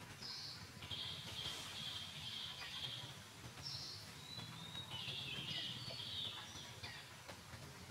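Wild birds singing and calling in repeated high chirping phrases, over a steady low background rumble.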